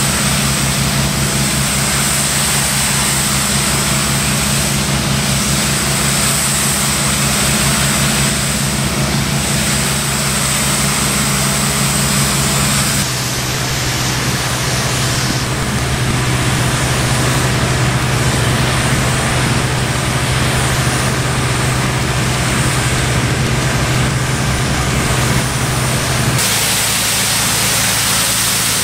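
High-pressure cleaning machine's engine and pump running steadily under the hiss of the water jet hitting paving stones. The drone shifts abruptly in pitch twice.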